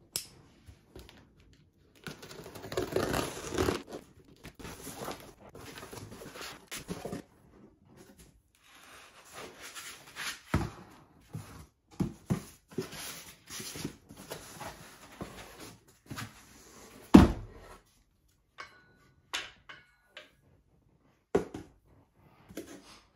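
Cardboard box being opened, with a stretch of tearing about two seconds in, then cardboard rustling and scraping as a metal tripod is pulled out and handled, giving scattered knocks. The loudest is a single sharp knock a little past halfway.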